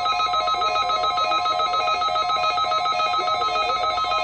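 NOAA Weather Radio alert tones: a steady warning tone with a rapid, evenly pulsing, ringing alarm over it, as the weekly test starts over.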